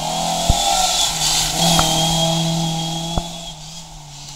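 Rally car's engine going past through a hairpin bend, its note held at a fairly steady pitch, growing louder and then fading as it pulls away. Three sharp cracks are heard along the way.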